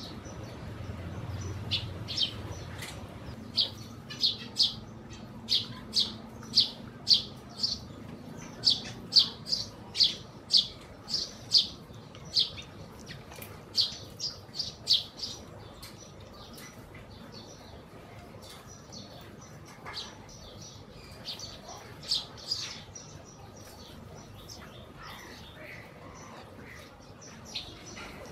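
Sparrows chirping: a long run of short, sharp, high chirps at about two a second, then from around the middle only a few scattered chirps.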